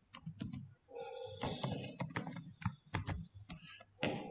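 Typing on a computer keyboard: a run of irregular key clicks as a word is typed out.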